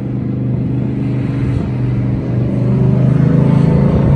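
Engine of a stretch-limousine monster truck running as it drives off, growing louder and a little higher in pitch about two seconds in as it pulls away.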